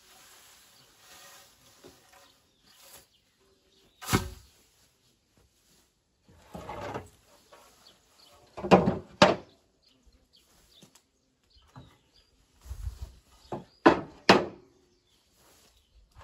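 Old wooden boards and broken roofing debris being pulled from a rubble heap and thrown down, making separate hard knocks and clatters: one about four seconds in, two close together near the middle and a quick cluster of three near the end, with scraping and shuffling between.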